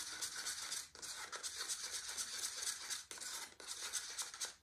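A plastic stirring stick scraping and rubbing round the inside of a paper cup as thick acrylic paint mixed with Owatrol and a little water is stirred quickly. The stirring breaks off briefly about a second in and again around three seconds.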